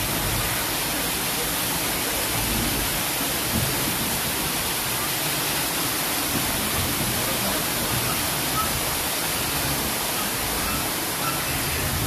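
Steady rushing hiss of falling water, even and unbroken.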